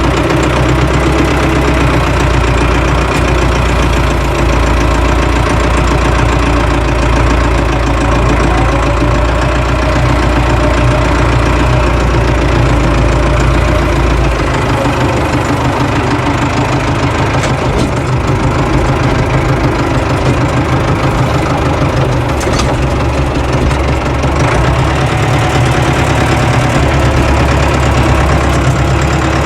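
Ford 5000 farm tractor's engine running as it is driven, heard from the driver's seat. Its deep note changes about halfway through.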